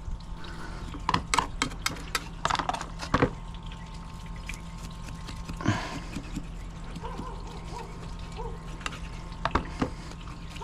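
A fillet knife scraping scales off a small bluefish: a run of quick scrapes and clicks, thickest in the first few seconds and sparser after, with water trickling.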